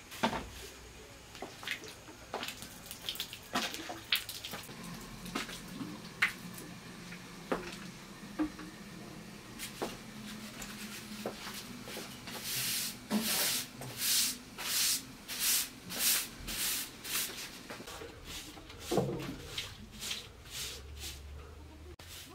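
Straw hand broom sweeping a packed-earth floor. Scattered light knocks and clicks come first, then a run of quick, even swishing strokes at about two a second from just past the middle.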